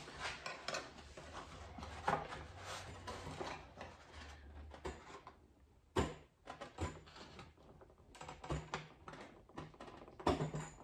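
Scattered light clicks and taps of hands pressing on and flexing the steel sheet metal and brace of a VW Beetle decklid, with a sharper knock about six seconds in and a few more near the end.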